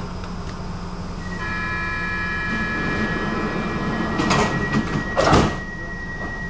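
Stockholm subway train's sliding doors closing over a steady hum: a set of steady high tones comes in about a second in, then two loud clatters about a second apart as the doors shut.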